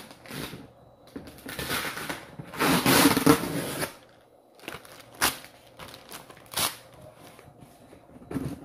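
Cardboard shipping box being opened by hand: rustling and tearing of its packing, loudest about three seconds in, followed by a few sharp clicks and knocks.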